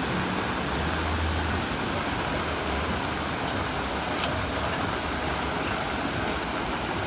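Chicken pieces deep-frying in a large pan of hot oil, a steady sizzling and bubbling, with a couple of light clicks from a metal utensil.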